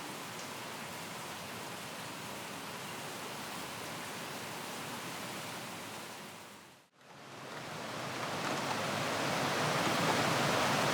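Steady rain ambience that fades out about seven seconds in, followed by a second, louder rain ambience fading in.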